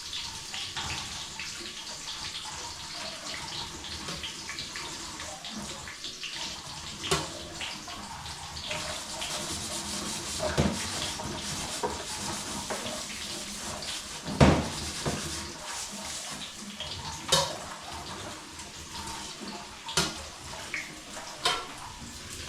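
A steady hiss with a handful of sharp clinks and knocks of a utensil against a cooking pot, the loudest about two-thirds of the way through.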